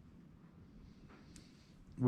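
Near silence: room tone with a low hum and a couple of faint clicks a little past one second in.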